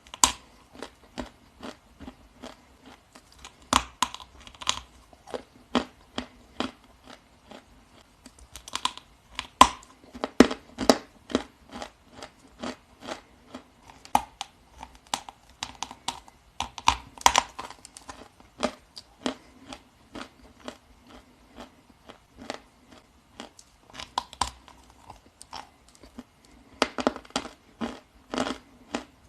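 Close-miked chewing and crunching of dry edible Ural clay: a steady run of sharp crunches, roughly two a second, with quicker bursts of bites now and then.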